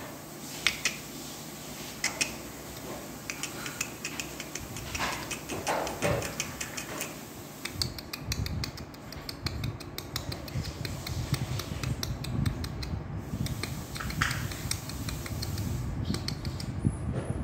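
A small plastic bowl clattering and scraping on a concrete floor as a puppy paws, mouths and pushes it, in a run of irregular knocks and clicks, the sharpest near the start.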